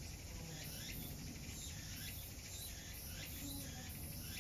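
Faint chirping: short, falling chirps repeating about once or twice a second, over a steady high hiss.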